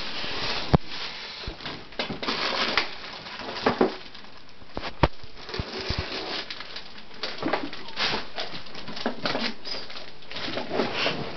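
A spoon scraping and knocking against a stainless steel pot as thick soup is stirred and scooped, with irregular clinks. The sharpest knocks come a little under a second in and about five seconds in.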